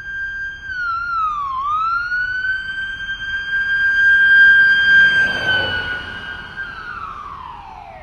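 Ambulance siren holding a steady high tone, dipping in pitch once about a second and a half in, growing louder to a peak around the middle with a short rush of noise, then winding down in a long falling glide near the end.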